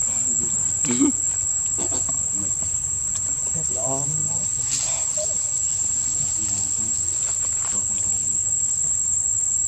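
Insects droning in one steady high-pitched note, unbroken throughout.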